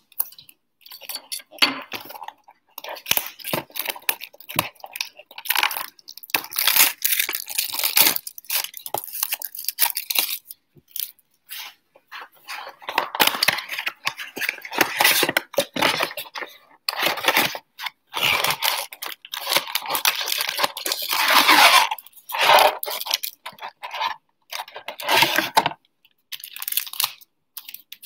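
Plastic shrink-wrap being torn off a cardboard trading-card hanger box and crinkled, then the box's cardboard flaps opened, in irregular bursts of tearing and crackling.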